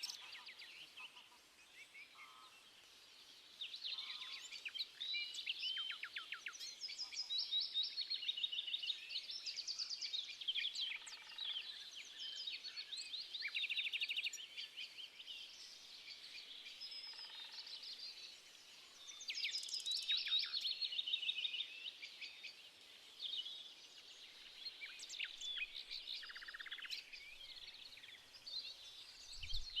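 Several songbirds singing and calling at once: overlapping high chirps, whistles and fast trills. There is a brief low thump near the end.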